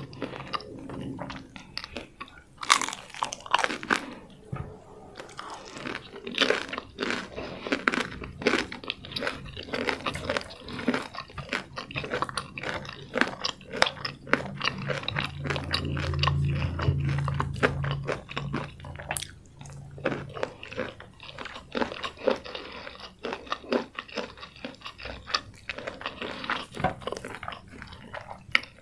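Close-miked chewing and crunching of crispy fried chicken with many sharp crunches, plus a low steady hum for a few seconds in the middle.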